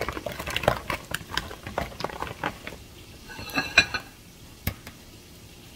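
Sauced chicken wings being tossed in a plastic bowl with silicone-tipped tongs: rapid, irregular wet clicks and taps. About three and a half seconds in, a plate clinks briefly, and a single sharp click follows near the end.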